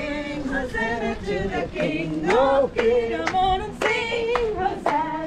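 Several voices singing together without instruments, holding and bending notes, with a few sharp knocks among them.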